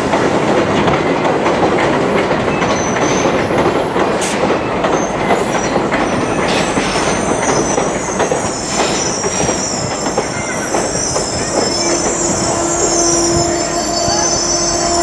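Amtrak passenger cars rolling over the rails with a steady rumble and wheel clatter. From about halfway through, a high-pitched metallic squeal sets in, and a lower steady squeal tone joins it near the end.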